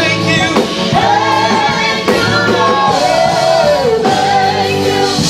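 Live gospel praise music: a lead singer holds long notes that slide down between pitches, over a church band's steady low accompaniment.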